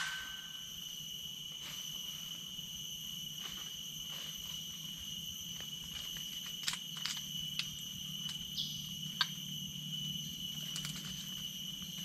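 Steady high-pitched drone of forest insects, opening on the fading ring of an air-rifle shot fired just before. A few faint, separate clicks and rustles come in the second half.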